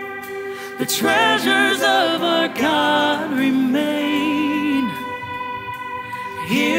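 Live worship song: a singer with a wavering vibrato over sustained piano and band chords, the voice coming in about a second in after a softer held chord.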